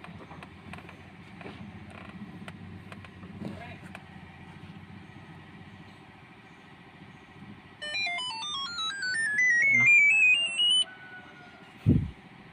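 A rapid run of electronic beeps about eight seconds in, short stepped tones climbing steadily in pitch for about three seconds. A single short low thump follows near the end.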